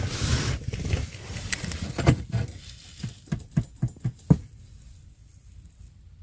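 A second of rustling from handling, then fingers tapping in a car's footwell under the dashboard: a run of about eight dull taps that stops about four and a half seconds in.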